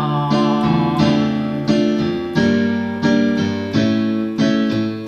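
Keyboard accompaniment to an improvised song: piano-like chords struck in a steady rhythm, about one chord every 0.7 seconds.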